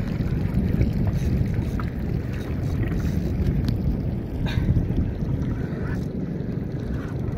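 Wind rumbling on the microphone over water lapping against a small boat's hull, a steady low noise with a few faint ticks scattered through it.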